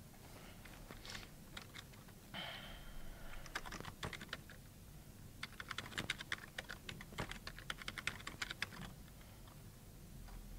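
Computer keyboard typing: faint runs of quick key clicks as a password is typed into one field and then typed again to confirm it.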